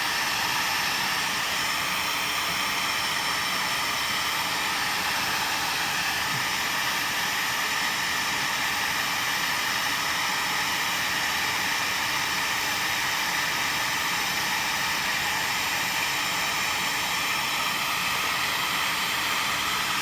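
Handheld hot-air blower running steadily with an even, airy hiss, heating wax from a wood-repair wax pencil to melt it into the window frame.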